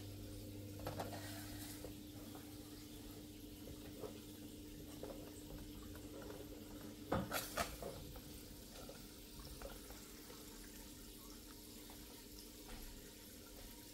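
Low steady hum and faint water trickle of a running aquarium with its Oase BioMaster canister filter, with a few light handling knocks and clicks, the loudest about seven seconds in.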